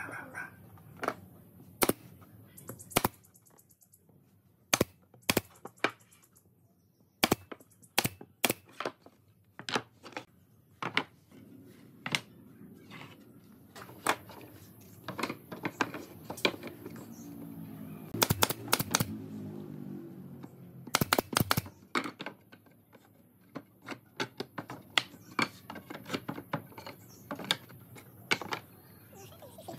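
Pine boards and wooden strips being handled and set down on a wooden workbench: a scattered series of sharp wooden knocks and clacks, some in quick clusters.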